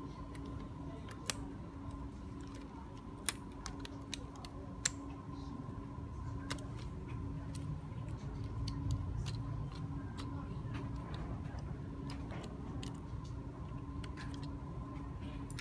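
Small clicks and ticks of hands handling a notebook's plastic top case and pulling a thin cable free, with three sharper clicks in the first five seconds, over a steady background hum.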